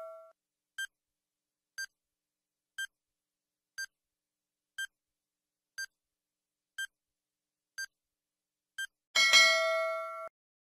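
Countdown timer sound effect: nine short, high beeps once a second, then a louder bell-like ding about nine seconds in, signalling time's up, which rings for about a second and cuts off suddenly.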